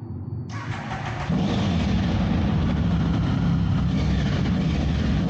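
A small monkey bike's engine running, loud and rough, with wind noise on the microphone; the sound comes in suddenly about a second in and then holds steady.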